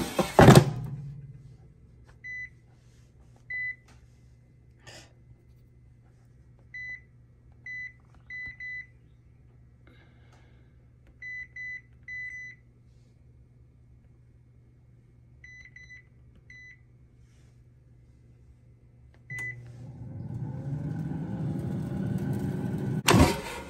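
Air fryer touch control panel beeping as its buttons are pressed: about fifteen short, high beeps, some single and some in quick runs of two or three, after a clunk at the start. About 19 seconds in, the air fryer's fan starts and runs with a whir that grows louder, then a sharp knock near the end.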